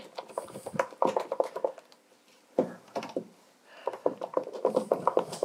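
Wooden spoon beating thick spätzle dough in a stainless steel bowl: an irregular run of wet slaps and knocks, with a short pause about two seconds in. The beating goes on until the dough comes cleanly off the spoon without lumps.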